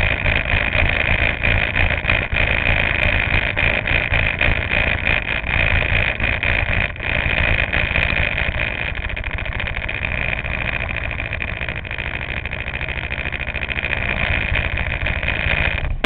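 Go-kart engine idling steadily with rapid, even firing pulses and a steady high whine over it.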